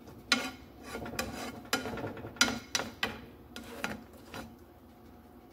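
A spatula scraping and knocking against a frying pan while stirring egg scrambled with vegetables: a run of short, uneven scrapes that stops a little over four seconds in.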